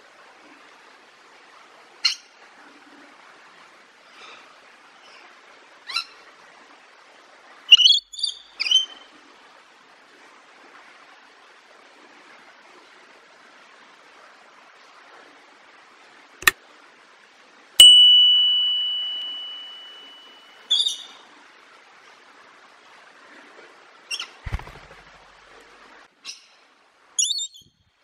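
Short, scattered bird chirps over a steady faint hiss. About two-thirds of the way through, a sharp click is followed by a loud ringing tone that fades out over about two seconds.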